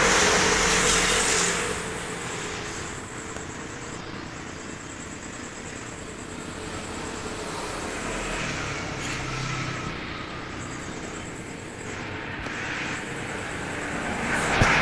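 Strong storm wind blowing in gusts, loudest in the first second or so and again near the end.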